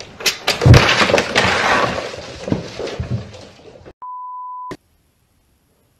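A loud crash and clatter of objects falling and knocking together, with several sharp impacts, loudest about a second in. It cuts off abruptly and is followed by a short steady beep from a colour-bar test tone.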